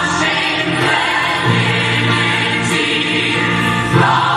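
A chorus of voices singing a musical-theatre number over an instrumental backing, holding long notes that change about one and a half seconds in and again near the end.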